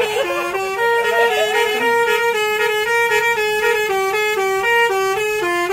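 Multi-tone 'basuri' (telolet) bus horn of an NPM Sutan Class coach playing a quick tune of short notes that step up and down.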